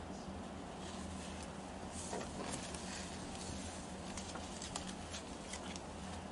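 Faint rustling and light scattered taps from handling fabric and colour samples, over a steady low electrical hum.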